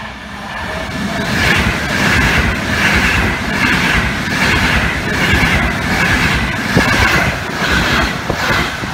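A train passing close by at speed on an Italian main line, building up quickly. Its wheels clatter in a regular rhythm over the rail joints, about every half second.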